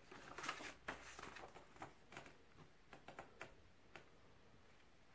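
Thick booklet pages being turned by hand: a faint page flip about half a second in, then a few soft paper rustles and light taps that stop after about four seconds.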